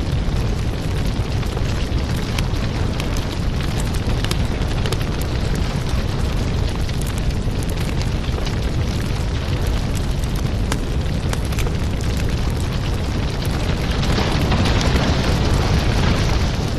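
Firewood fire burning, with a steady low rumble of the flames and frequent crackles and pops of the burning wood; the rush of the fire swells louder and brighter near the end.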